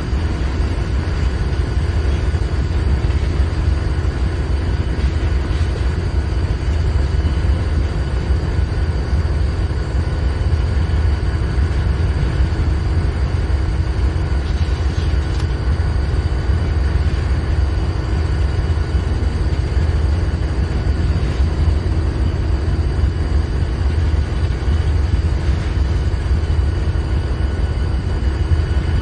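Diesel-electric freight locomotives running in a rail yard: a steady deep engine rumble with a faint constant hum above it.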